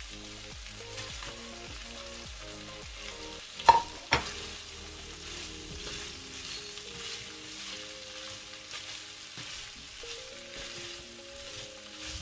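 Broccoli, carrots and minced meat sizzling in a hot frying pan as they are stirred with a wooden spatula. Two sharp clanks about half a second apart come a little under four seconds in.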